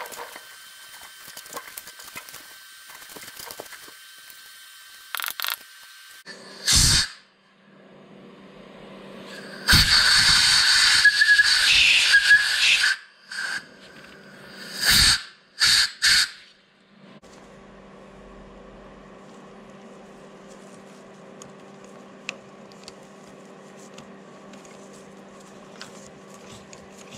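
Compressed-air blow gun blasting into the freshly tapped bolt hole in the end of a Wisconsin VH4D crankshaft to clear out chips: a short blast, then one long hissing, whistling blast of about three seconds, then a few short bursts. A steady low hum runs underneath.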